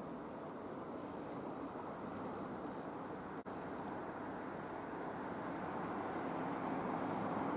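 An insect chirring in the undergrowth: one continuous high, faintly pulsing trill, over a steady rushing background noise that grows louder near the end. The sound drops out briefly about halfway through.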